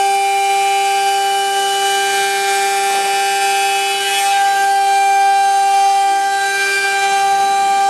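Water-cooled 4.5 kW spindle of a CNC router whining at a steady pitch while the bit cuts through 25 mm MDF, with a hiss from the cut over the whine.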